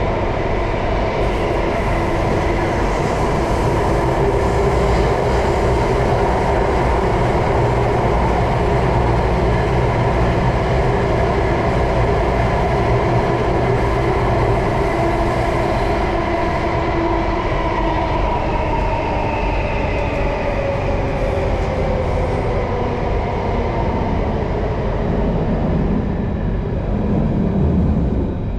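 Inside a metro train car running through a tunnel: a steady rumble of wheels on rail with the whine of the electric traction motors. In the second half the whine falls in pitch as the train slows for the next station.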